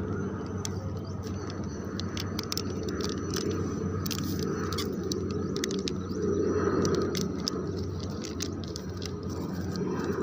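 Light, scattered crinkles and clicks of a small plastic packet being cut open with a knife and handled over a plastic bag of bait, over a steady low hum.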